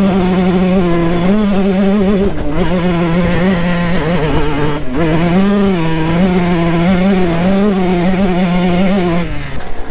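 Dirt bike engine running hard at high revs, its note wavering up and down with the throttle. It dips briefly about two and a half and five seconds in, and falls away near the end.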